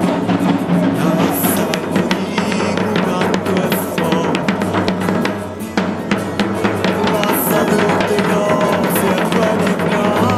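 Traditional Sicilian festival tamburo, a strap-carried drum, beaten with sticks in a fast, dense run of strokes.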